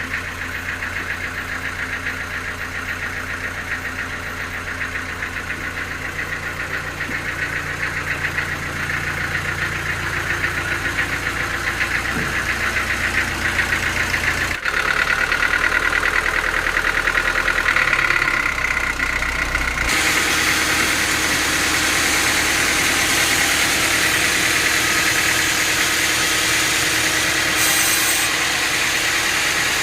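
Sawmill machinery running steadily: an engine with a fast, even pulse and a mechanical whine. The sound changes abruptly twice, about halfway through and again a few seconds later.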